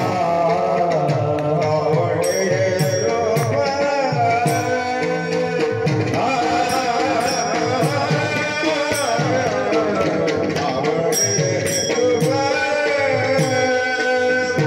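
Devotional kirtan music: a man singing a wavering melody into a microphone, over a drum and small hand cymbals keeping a quick, steady beat.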